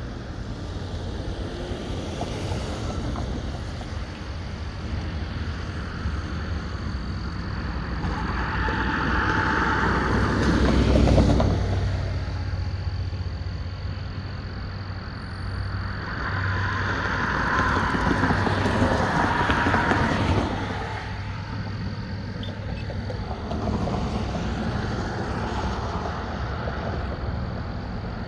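Road traffic passing at an intersection, tyres hissing on wet pavement. Two vehicles swell past, the loudest about ten seconds in and another around eighteen seconds, over a steady low traffic rumble.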